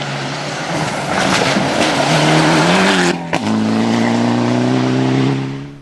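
Rally car engine running hard at high revs as it passes close, over a loud hiss of tyres. About three seconds in the engine note breaks briefly with a sharp crack, then comes back steady before the sound drops away near the end.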